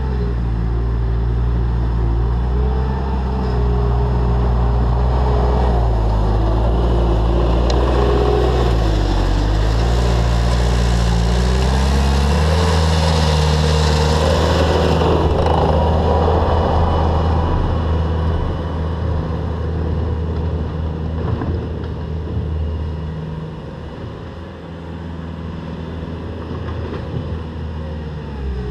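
Bobcat T300 compact track loader's diesel engine working under load while pushing fill, with track and bucket clatter. The engine note sags and recovers about nine seconds in, and the sound eases off somewhat near the end.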